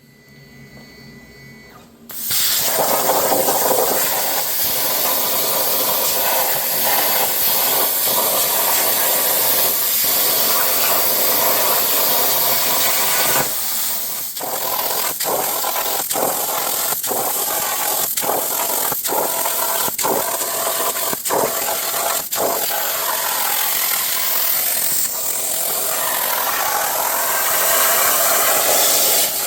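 A power tool cutting 1/8-inch steel plate, starting about two seconds in and running steadily, with short regular dips in the middle stretch.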